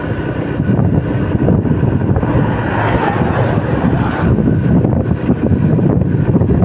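Motorcycle ride: steady engine and road rumble with wind buffeting the microphone. A louder hiss swells about two and a half seconds in and drops away after about four seconds.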